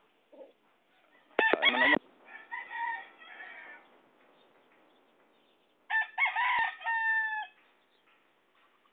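Rooster crowing twice: a loud crow about a second and a half in that trails off, then a second crow about six seconds in.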